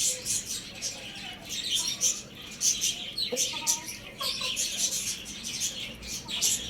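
Many small birds chirping rapidly and continuously in high-pitched bursts, with a few short lower calls mixed in.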